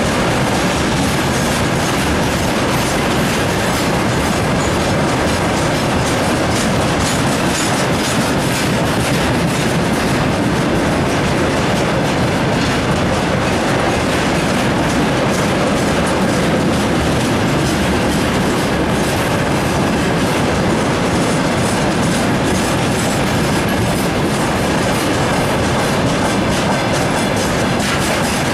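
Freight train of rail tank wagons rolling past close by: a steady, loud rumble with wheels clattering over the rail joints.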